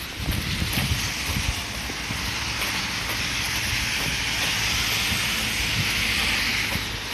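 Wind buffeting the microphone in gusts, with a steady rushing hiss that builds to its loudest a little past halfway and eases off near the end.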